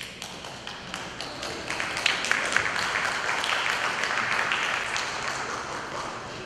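Audience applauding, building over the first couple of seconds and tapering off near the end, greeting the conductor's entrance.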